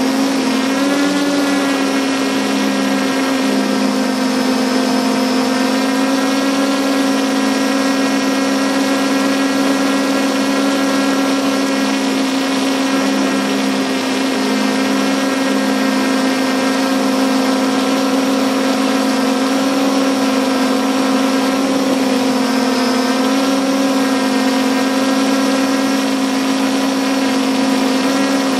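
A multirotor drone's motors and propellers humming steadily, close to the microphone, with small shifts in pitch now and then.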